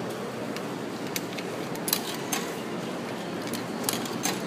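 Coins going one after another into a vending machine's coin slot, making about six sharp metallic clicks over a few seconds, over a steady background noise.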